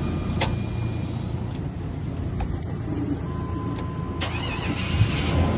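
Chevy Express van's engine idling steadily, with a few sharp clicks and a steady electronic tone coming in about three seconds in.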